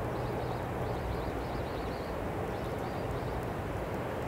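Steady rumble of a long freight train rolling slowly away over the rails, with a low hum beneath it. Faint high chirps come and go over it.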